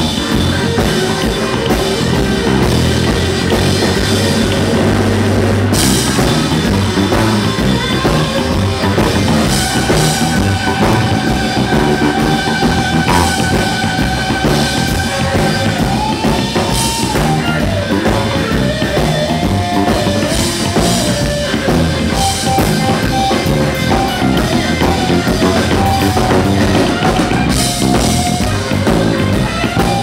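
Live blues band playing: drum kit and bass under an electric guitar, with long held notes that then bend up and down in pitch about halfway through.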